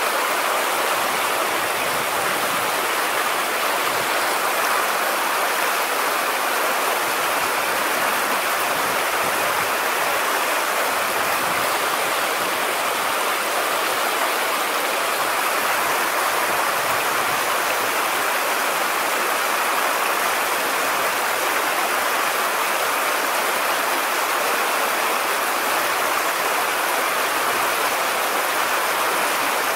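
Steady rush of stream water running over a shallow riffle.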